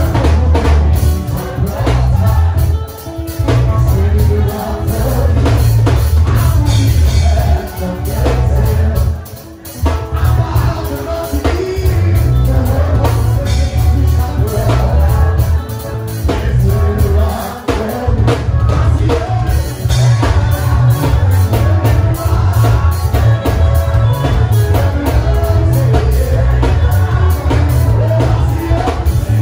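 Worship music with singing over a drum kit and a heavy bass. The band drops out briefly about nine seconds in.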